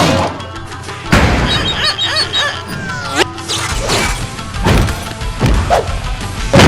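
Cartoon sound effects over background music: a string of hits and crashes about once a second, with a sliding tone that swoops down and back up about three seconds in.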